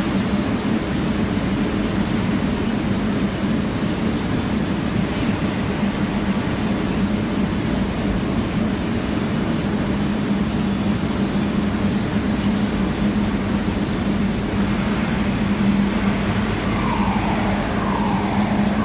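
Electric arc furnace running on graphite electrodes: a loud, steady roar of the arc with a strong low hum. A couple of short falling tones come near the end.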